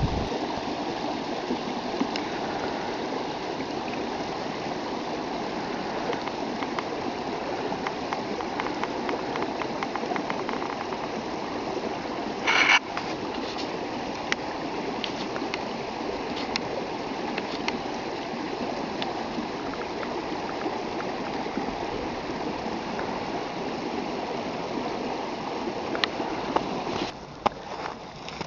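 A small stream's water running steadily, with one brief sharp knock about halfway through. The sound of the water drops away shortly before the end.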